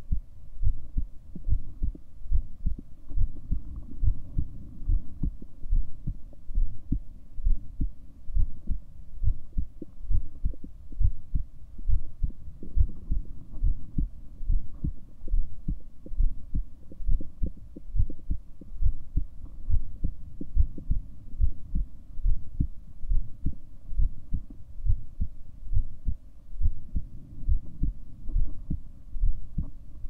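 A person's heartbeat, recorded close up: a steady, regular run of low thumping beats.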